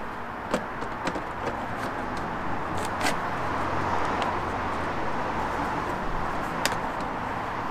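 A few sharp plastic clicks and taps as a plastic front grille is pressed against a car's front bumper to test the fit, the loudest about three seconds in and near the end. A steady hiss of background noise runs underneath.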